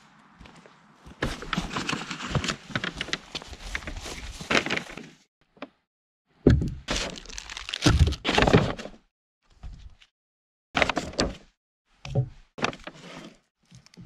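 Paper grocery bag rustling and plastic packaging crinkling as groceries are unpacked, with heavy thunks as items are set down on a wooden picnic table. A long stretch of rustling comes first, then the thunks, then shorter bursts of rustling and knocks.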